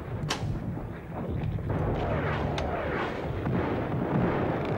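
Bombardment: several whistles falling in pitch as munitions come down, a few sharp cracks of blasts, over a steady low rumble of explosions.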